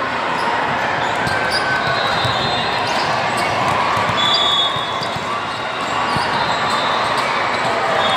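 Indoor volleyball game: the ball being hit and bouncing off the floor, with short high squeaks a few times and voices in the background.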